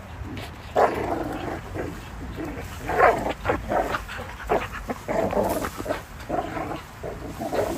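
Two Belgian Malinois hanging from and tugging at a suspended rope toy, giving many short, pitched vocal sounds in quick succession while they bite and pull.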